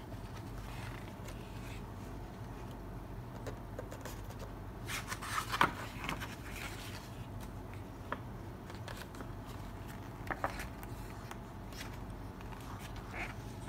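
Pages of a large artbook being turned by hand: paper sliding and rustling in short bursts, loudest about halfway through, with a few lighter paper ticks later. A steady low hum runs underneath.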